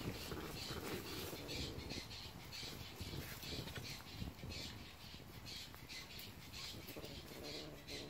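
Cat chewing and tearing at a freshly shot bird, a short crunching sound repeating about twice a second.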